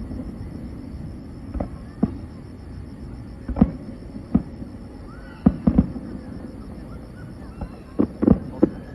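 Fireworks display: shells bursting in sharp bangs at irregular intervals, about ten in all, some in quick pairs and a cluster near the end.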